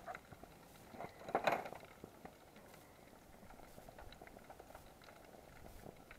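Aluminium mess tin on a lit titanium alcohol stove, its contents simmering faintly with scattered small crackling ticks. A short louder noise stands out about a second and a half in.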